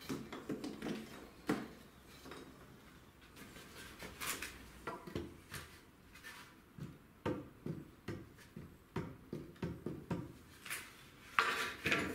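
Irregular knocks, clicks and rattles of tools and equipment being handled and set down, with a louder burst near the end.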